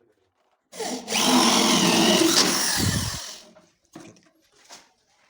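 An electric power tool runs in one burst of about two and a half seconds, its motor pitch wavering as it works the wood.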